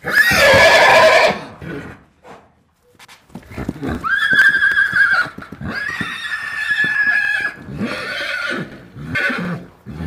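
Horse neighing: a loud whinny in the first second and a half, then a run of further long whinnies from about three and a half seconds in.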